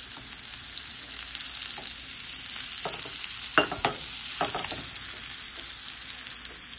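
Breaded chicken tenders sizzling steadily in hot oil in an enamelware frying pan. A few knocks and scrapes come around the middle as the pan is shifted on the stove grate.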